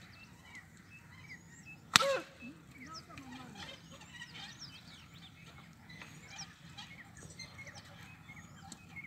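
Small birds chirping in short, scattered calls over a quiet field, with one sharp crack and a short falling cry about two seconds in.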